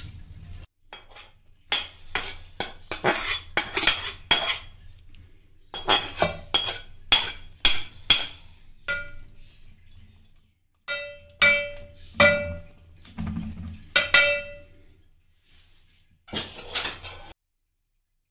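Metal spoon knocking and scraping against a metal cooking pot as rice and cooked chicken are spooned in and spread. The clinks come in quick clusters, and some of them ring briefly.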